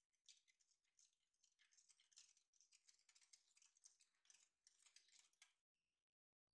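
Faint stainless-steel balloon whisk beating a runny batter in a bowl: a quick run of scratchy strokes that stops about five and a half seconds in.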